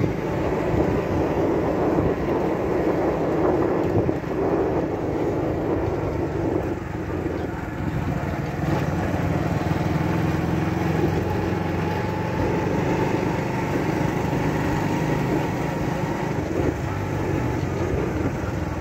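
Small motorcycle engines running steadily at cruising speed on a dirt track, heard from a moving motorcycle, with road noise.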